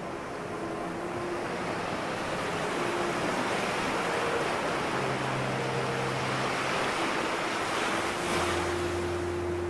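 Sea surf washing and breaking, a rush of noise that swells toward the middle and eases off, over sustained ambient drone tones; a deep held drone and a higher held note come in about eight seconds in.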